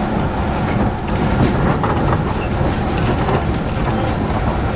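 Astram Line rubber-tyred guideway train running along its concrete guideway, heard from inside the front car: a steady running rumble with occasional light clicks.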